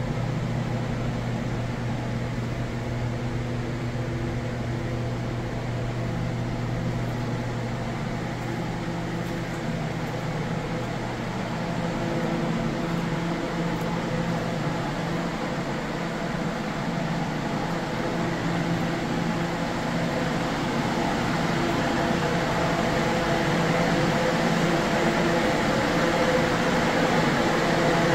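Steady hum in a bee wintering room, from ventilation fans and the wintering colonies in their hive boxes. It grows a little louder near the end.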